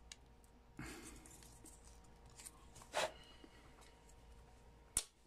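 Faint handling of a plastic action figure as its arm peg is pulled out: a soft rustle about a second in, a short scrape around three seconds, and one sharp click near the end.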